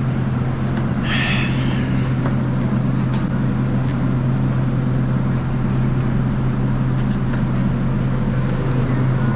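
Steady low hum of refrigeration machinery in a dairy cooler, with scattered light clicks and taps as pulp egg cartons and eggs are handled on a metal shelf, and a brief rustle about a second in.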